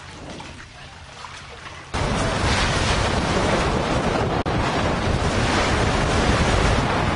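Wind buffeting the microphone over sea water rushing past a sailing catamaran under way. After a quieter first two seconds of faint water trickling, it comes in abruptly and loud, with a brief dropout a little past the middle.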